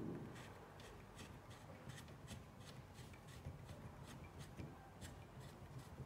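Faint, irregular small clicks and rubbing from hands handling a small aluminium-alloy XYZ sliding table.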